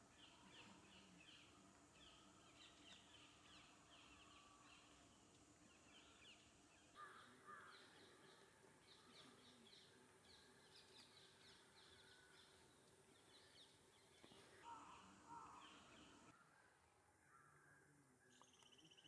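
Near silence, with faint bird chirps repeating in the background.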